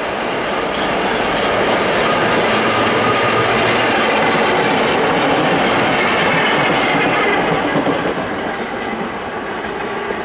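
A set of vintage BMT Standard subway cars running past on the tracks: the noise of wheels on rail builds, stays loud as the cars go by, and drops away near the end.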